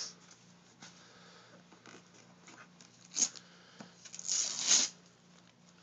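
Christmas wrapping paper being torn and crumpled by small hands, in short crackly rips, with the longest and loudest tear between about four and five seconds in.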